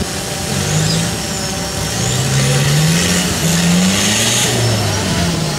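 Turbo-diesel engine of a Suzuki Samurai trial 4x4 revving hard under load as it climbs an obstacle, the revs rising in several surges.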